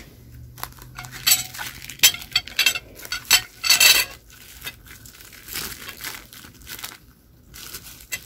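Plastic cheese wrapper crinkling as it is pulled open, with a knife clinking on a ceramic plate. The crinkling comes in sharp bursts, loudest in the first half, then settles into quieter handling.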